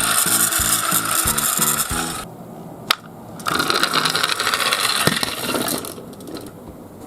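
Toy garbage-truck minicars being handled, their small plastic parts and gear mechanisms giving a fast ratcheting clatter. It comes in two stretches with a single sharp click between them.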